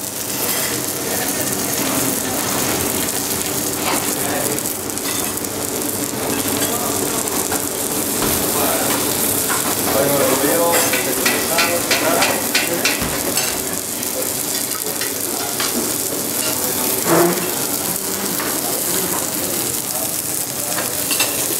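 Two saffron milk cap mushroom caps sizzling steadily on a hot flat-top griddle, salted so they give up their water. Kitchen clatter sounds over it, with a run of rapid clicks about ten seconds in.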